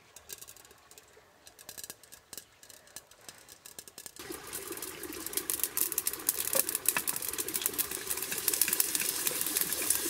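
Hot oil in a clay pan sizzling and crackling as tempering ingredients go in. The dense crackle starts suddenly about four seconds in and keeps going while it is stirred; before that there are only a few faint clicks.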